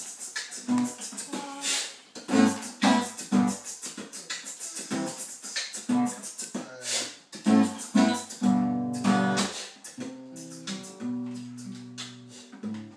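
Acoustic guitar being strummed in a steady run of chords. Near the end the playing slows to a few held, ringing notes and then stops.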